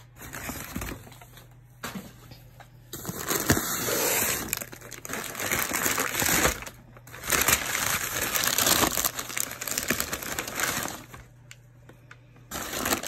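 Packing paper crumpling and rustling as a wrapped ceramic figurine is dug out of a cardboard box and unwrapped, in long bursts with short pauses.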